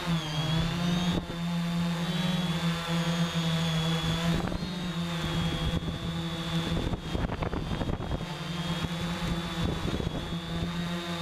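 3DR Iris quadcopter's four electric motors and propellers buzzing steadily in flight, heard from the camera it carries, with a thin high whine above the hum. The pitch dips briefly about half a second in as it manoeuvres, and rough, gusty noise breaks over the buzz from about four to ten seconds in.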